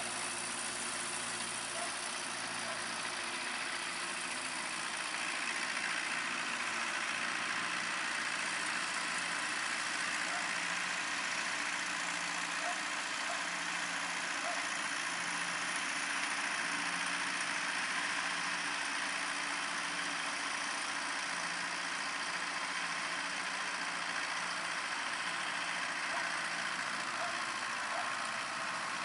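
Nuffield 460 tractor's BMC diesel engine running steadily at low revs under light load, with a slow throb about once a second and a steady hiss over it.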